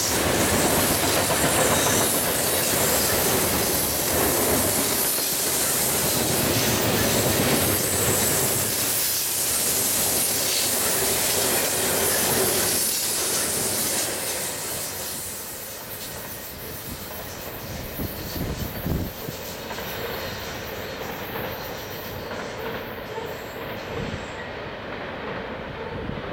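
Freight train cars loaded with containers rolling past close by: a steady rumble and rattle of steel wheels on the rails, with clicking over the rail joints and a high wheel squeal on the curve. A little past halfway the end of the train passes and the sound fades into the distance, with a few louder knocks as it goes.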